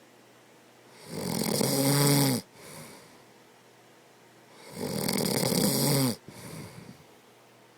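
A man snoring: two loud snores about three and a half seconds apart, each about a second and a half long and cutting off abruptly, each followed by a softer, shorter breath.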